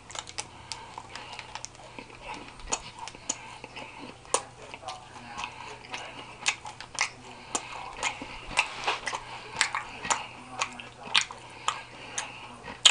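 A person chewing a mouthful of chocolate chip cookie with the mouth close to the microphone: irregular wet mouth clicks and smacks, a few each second.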